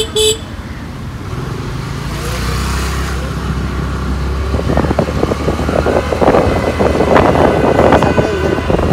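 Road traffic: a car horn toots twice right at the start, then a low, steady engine drone from passing vehicles. Rough wind noise on the microphone builds and grows louder over the second half.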